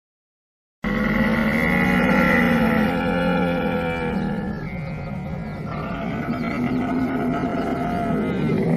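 Camel calling: a loud, deep, rumbling vocalization that starts abruptly about a second in and goes on without a break, dipping slightly in the middle.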